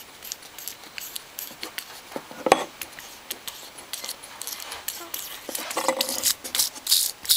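Small metal parts of an opened-up electric fuel pump clicking and clinking as they are handled and turned by hand, with one louder knock about two and a half seconds in.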